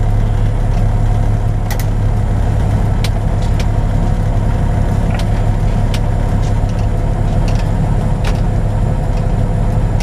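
Semi truck's diesel engine running steadily at low speed, heard from inside the cab as a constant low drone, with a few sharp clicks over it.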